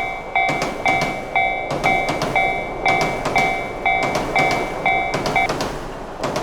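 Railroad crossing warning bell ringing about twice a second while a train passes, its wheels clacking over the rail joints. The bell stops about five and a half seconds in as the train runs on.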